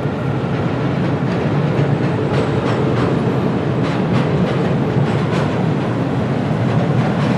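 Train rolling along the rails: a steady heavy rumble with irregular clicks of the wheels passing over rail joints.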